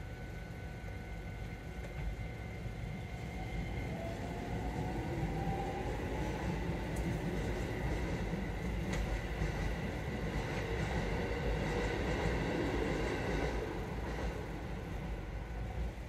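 Keisei electric commuter train passing over the level crossing: a whine that rises in pitch, then the wheels rumbling and clicking over the rails, heard from inside a car waiting at the crossing.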